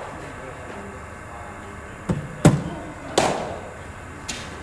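A bowling-machine delivery in an indoor cricket net: a cricket ball pitching and being struck by the bat in a front-foot drive, then hitting the net. Four sharp knocks in about two seconds, starting about two seconds in, the second the loudest.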